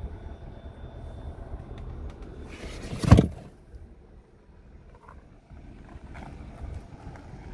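A single loud thump about three seconds in, led in by a brief rushing noise, over a low rumble of handling and wind noise on the microphone.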